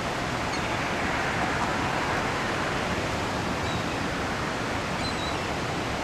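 Steady rush of water pouring over a dam spillway, with a few faint short high calls from birds.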